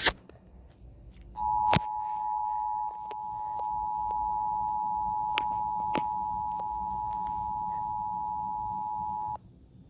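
Emergency Alert System attention signal: two close-pitched steady tones sounding together for about eight seconds, starting with a click about a second and a half in and cutting off suddenly near the end. It announces a severe thunderstorm warning.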